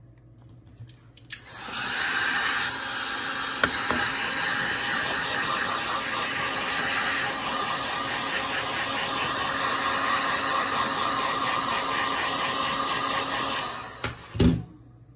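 Genesis GHG1500A electric heat gun switched on about a second and a half in and blowing steadily for about twelve seconds before it is switched off, heating vinyl wrap so that it conforms to a rifle magazine. A short knock comes just after it stops.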